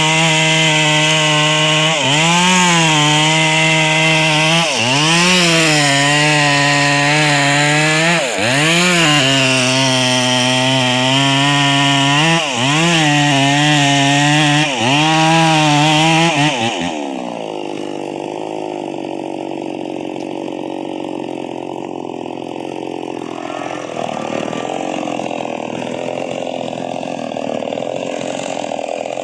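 Chainsaw with a 22-inch bar running at high revs through wood, its pitch dipping and recovering every couple of seconds as the chain bites and clears. About seventeen seconds in, the sound cuts off abruptly to a quieter, rougher noise without a clear engine pitch.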